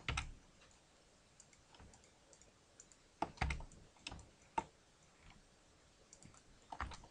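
Faint, scattered computer keyboard keystrokes and mouse clicks, in small groups at the start, from about three to four and a half seconds in, and near the end.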